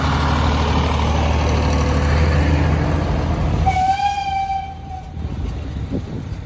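Narrow-gauge motor railcar's engine running loudly with a steady low drone as it pulls past, fading as it moves off. A single steady train horn note sounds for about a second, starting just under four seconds in.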